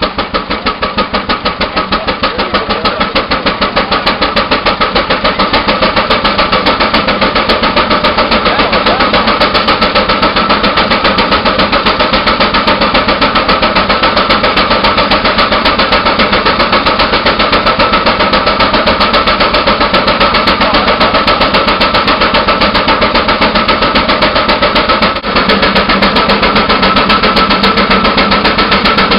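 1923 steam tractor's engine working hard, its exhaust chuffing up the stack in rapid, even beats that quicken over the first few seconds and then hold steady.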